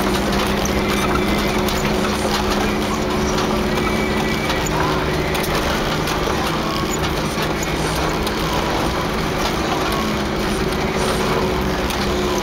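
1988 Toyota 4Runner driving slowly over a rough dirt trail, heard from inside the cab: a steady engine drone with the body rattling and knocking over the bumps.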